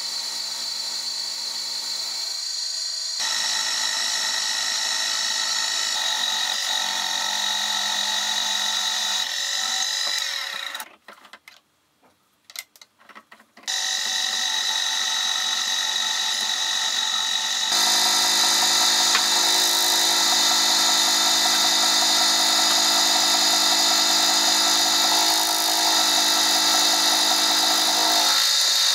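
Milling machine spindle running with an endmill cutting aluminium soft jaws: a steady machine whine with cutting noise. It drops out for about three seconds near the middle, then comes back, louder over the last third.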